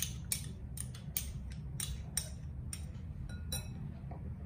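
Steel spoon scraping pizza sauce out of a small glass bowl: a quick run of short scrapes and light clinks against the glass, about a dozen in the first three and a half seconds, then it stops.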